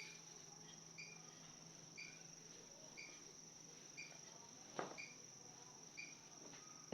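Faint insect chirping, likely crickets: a steady high trill under short chirps repeating about once a second. A single sharp knock sounds about five seconds in.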